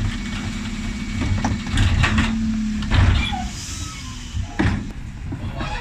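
Bin lorry's Terberg OmniDEKA hydraulic bin lift emptying wheelie bins: a steady hum from the truck that stops about three and a half seconds in, with repeated loud bangs and clatters as the bins are tipped and knocked against the lifter.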